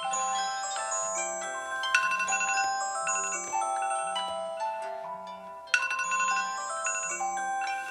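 Smartphone alarm tone ringing: a bright, xylophone-like melody of quick chiming notes over a regular low pulse. The phrase starts over about every four seconds.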